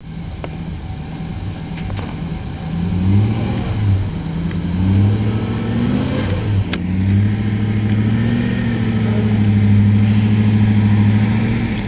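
Classic two-door Range Rover's engine pulling at low revs as the 4x4 crawls through deep off-road ruts, the revs rising in short pushes and then held steadily higher through the second half.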